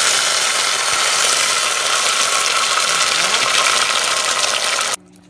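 Blended tomato poured into a saucepan of hot oil, sizzling and spattering loudly; the sizzle cuts off suddenly near the end.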